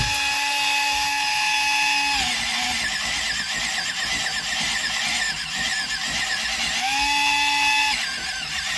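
Electric pencil sharpener's small motor running, powered from a wall wart: a steady whine that turns to a rougher grinding for several seconds as a coloured pencil is fed in, then whines freely again near the end. It sounds weak under load; "it ain't very powerful".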